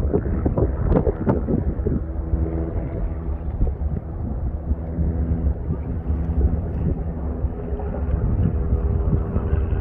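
Volcanic eruption at Fagradalsfjall giving off a steady low rumble and hum. Wind buffets the microphone in the first second and a half.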